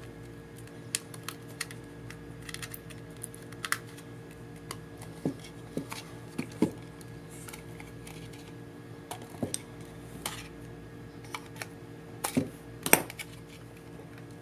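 Scattered light clicks and taps of a hard plastic DJI Phantom 2 quadcopter body and its retract landing gear being handled and turned over, with a louder knock near the end as it is set down. A steady low electrical hum runs underneath.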